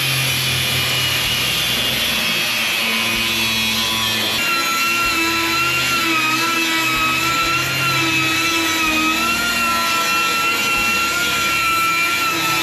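A power tool running continuously in a metal shop: a steady hiss with a high whine that wavers slightly in pitch, the whine coming in about four seconds in.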